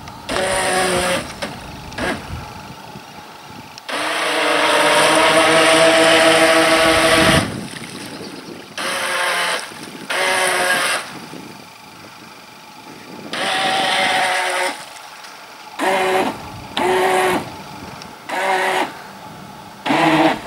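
Radio-controlled model speedboat's motor running in short bursts of throttle: a steady whine that starts and stops about nine times, the longest burst lasting about three and a half seconds.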